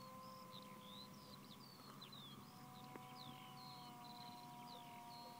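Faint bird chirps, short slurred whistles repeating a few times a second, over a faint steady hum of several tones that drifts slightly lower.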